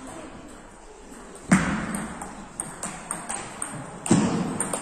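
Table tennis ball being played in a rally: quick light ticks of the ball on bats and table about three a second, starting about a second and a half in, with two louder sharp knocks, at the start of the rally and near the end, that ring out in the hall.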